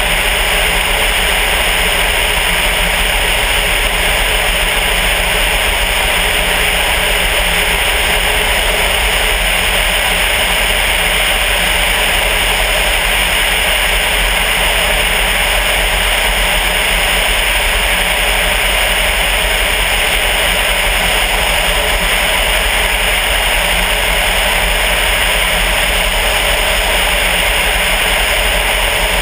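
Steady drone of a Sonex light aircraft's air-cooled VW-based flat-four engine, mixed with wind rushing over the externally mounted camera, unchanging in level throughout.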